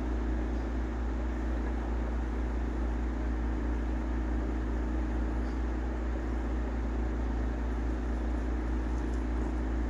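A steady low mechanical hum with a faint even hiss, unchanging throughout.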